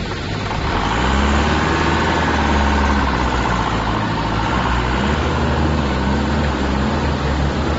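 Forklift engine revving up about a second in and running steadily under load as the forklift drives up a ramp into a shipping container.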